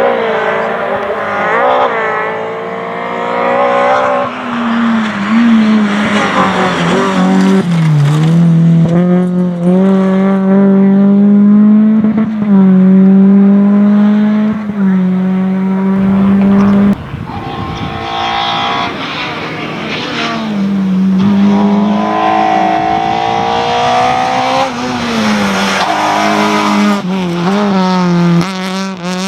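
Rally car engine at high revs, its pitch repeatedly rising and falling as it shifts gears and lifts off. About seventeen seconds in the sound suddenly drops and gets quieter for a while, then picks up again.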